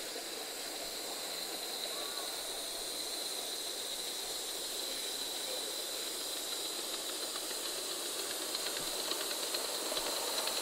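Coal-fired Gauge 3 live-steam model locomotive hissing steadily as it runs, slowly growing louder as it draws near, with faint quick ticking coming in near the end.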